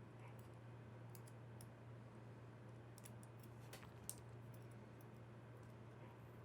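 Faint, scattered small clicks of tiny lock parts being handled as springs and spool pins are loaded back into a padlock core's pin chambers, over a steady low hum.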